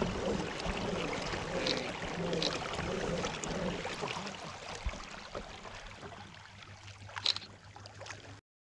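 Water lapping around a kayak on calm water, with light wind noise and a few short clicks, fading and then cutting off abruptly near the end.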